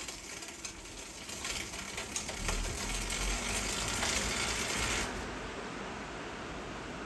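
Bicycle rear wheel turning on an Onyx Racing Vesper sprag-clutch hub: a steady mechanical whirr that grows louder about a second in and drops off sharply about five seconds in, leaving a fainter whirr.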